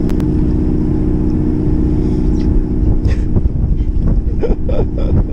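Fishing boat's engine running steadily: a low rumble with an even hum.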